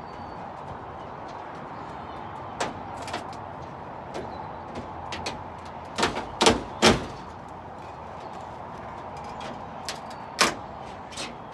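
Scattered knocks and clunks as old flooring is worked out of a rabbit hutch: single hits about two and a half and three seconds in, three loud ones close together around six to seven seconds, and two more near the end, over a steady background hiss.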